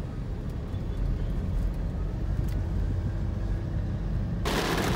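Low, steady rumble of road and engine noise inside a Mitsubishi Pajero Sport's cabin as it drives. About four seconds in, this cuts abruptly to a loud, even hiss of heavy rain on the car's windshield and body.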